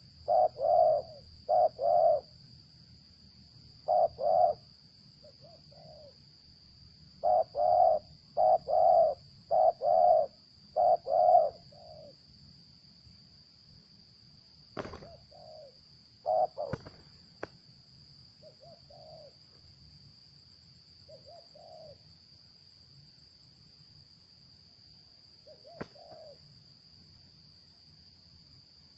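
Spotted doves cooing in repeated phrases, loud and close for the first dozen seconds, then fainter coos at scattered intervals. A steady high insect drone runs underneath, and a few sharp clicks fall around the middle and again near the end.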